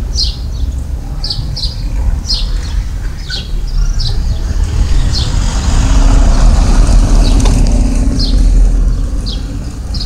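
Small birds chirping in short, repeated calls over a steady low rumble, while a motor vehicle passes, its engine and road noise building to loudest a little past the middle and then fading.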